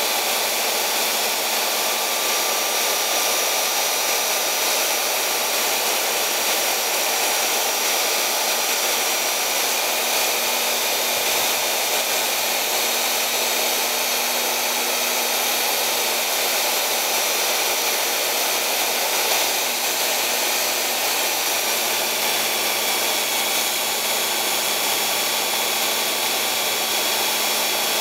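A 4 x 24 inch belt sander with 120-grit paper runs steadily while the bevel of an old steel chisel is held on the belt and ground back. It makes an even noise with a steady high whine.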